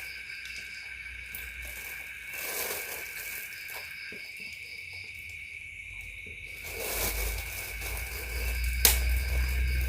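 Steady high-pitched chorus of night insects, with a low rumble building in the last few seconds and one sharp click about nine seconds in.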